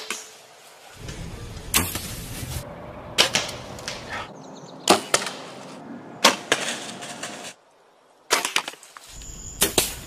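A quick run of bow shots: about seven sharp thwacks of bowstrings releasing and arrows striking, one every second or so. The background noise changes abruptly between them, with a short near-silent gap near the end.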